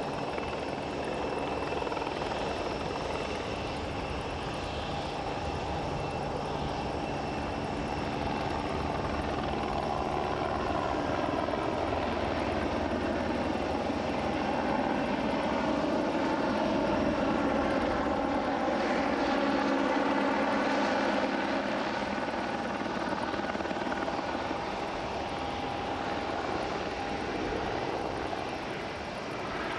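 Airbus A220-300's Pratt & Whitney PW1500G geared turbofans running at taxi power: a steady jet whine and rush of air that grows a little louder toward the middle and eases near the end.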